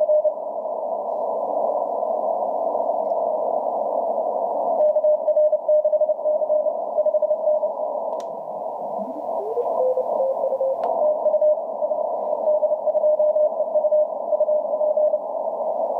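Morse code (CW) signal heard through an amateur radio receiver on the 30-metre band: steady band hiss through a narrow CW filter, with a single-pitch keyed tone sending in runs from about five seconds in and again after about eleven seconds. Briefly, near the middle, a second tone rises in pitch.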